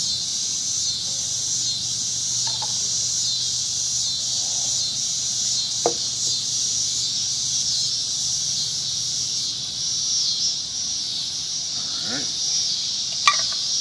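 A dense chorus of insects chirring steadily at dusk, a high-pitched pulsing drone. Two sharp clicks stand out, one about halfway through and one near the end.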